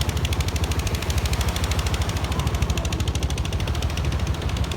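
An engine running steadily with a rapid, even chugging of about ten beats a second.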